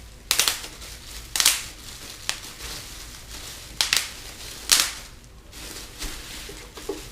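Plastic bubble wrap packing crinkling and crackling as it is pulled out of a box and handled, with a handful of sharp crackles about a second apart.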